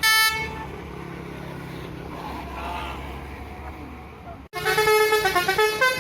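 Tour bus's musical 'basuri' telolet horn: a short horn blast at the start, then a few seconds of steady engine and traffic hum, then from about four and a half seconds in a loud, fast melody of stepping horn notes.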